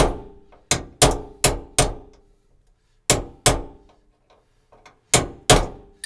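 Hammer striking a steel center punch set on a stubborn pop rivet in the inner sheet-steel panel of an Astro van's sliding door, each blow a sharp metallic clang that rings briefly. There are about nine blows: five quick ones in the first two seconds, then two pairs spaced further apart.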